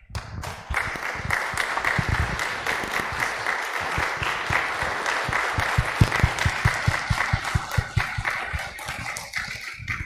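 Congregation applauding, a dense patter of many hands clapping that starts right away and thins out near the end. One person claps close to the microphone, adding sharper, evenly spaced claps in the second half.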